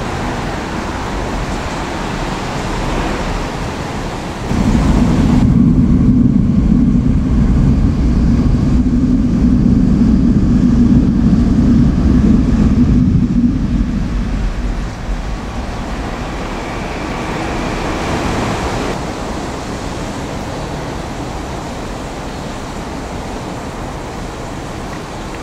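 An electric train passing close by: a loud, low rumble comes in suddenly about four seconds in, holds for roughly ten seconds and fades away, over a steady background of noise.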